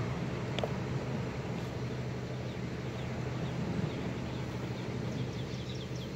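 Steady low mechanical hum outdoors. About a second before the end, a bird's rapid trill of short, falling high notes comes in. There is a single light click near the start.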